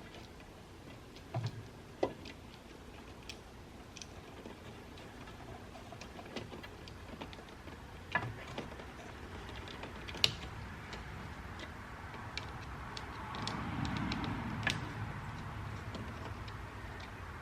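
Scattered small clicks and taps from parts being handled by hand, with a soft rustling swell about fourteen seconds in.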